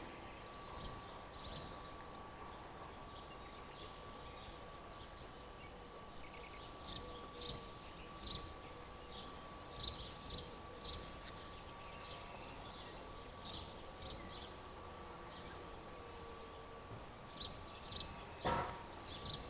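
Small bird chirping outdoors: short high chirps, mostly in pairs or threes, every second or two over a faint background hush. There is a single sharp knock near the end.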